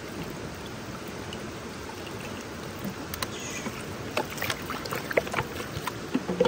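Water poured from a plastic bottle into a metal pot over a whole raw chicken, trickling and splashing in irregular sharp spatters from about three seconds in, filling the pot to boil the chicken. Steady background hiss before the pouring starts.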